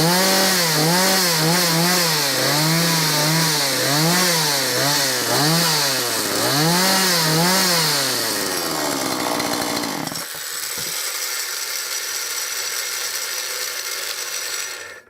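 Gardenline GLPC 41 two-stroke chainsaw running and being revved in about eight quick blips, then dropping back and running more quietly until it cuts off near the end.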